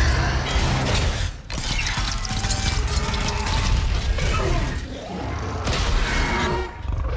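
Film battle sound mix of a giant robot fighting a monster: a dramatic score under heavy metallic clanking and grinding, booming impacts and crashing debris, with short lulls between the hits.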